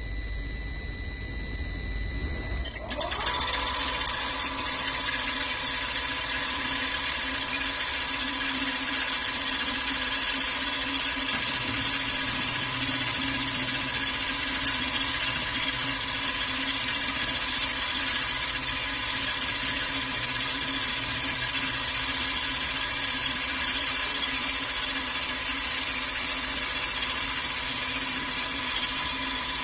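CNC woodworking lathe's spindle motor spinning up with a rising whine about three seconds in, then running steadily at speed with a constant high whine.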